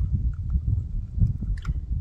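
Wind buffeting the microphone: a steady, uneven low rumble, with a few faint clicks over it.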